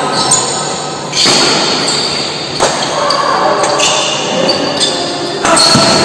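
Badminton rally in a large echoing hall: a few sharp racket hits on the shuttlecock and short high squeaks of shoes on the court, over a background of distant voices.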